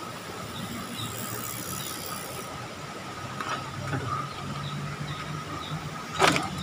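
Riding noise from a mountain bike on a dirt road: a steady high whine over a low rumble, with faint high chirps. A brief loud, sharp squeal comes near the end.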